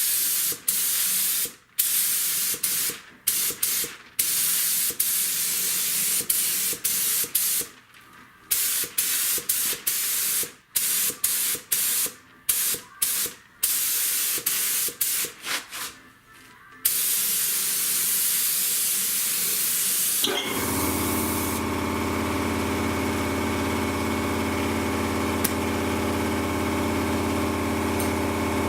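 Paint spray gun spraying primer, a hiss of air and paint in many short and longer bursts as the trigger is pulled and released, then held for a longer pass. About two-thirds of the way through, a steady motor hum with a low drone sets in and runs on.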